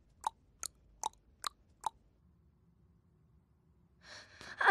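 Tongue clicks imitating a clock's tick-tock: five sharp, even clicks about two and a half a second, stopping about two seconds in. A voice begins faintly near the end.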